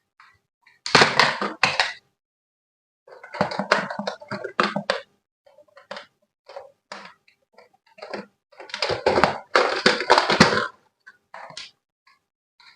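Handling noise from unboxing a toy: three bursts of rustling and clattering, each one to two seconds long, with a few small ticks between.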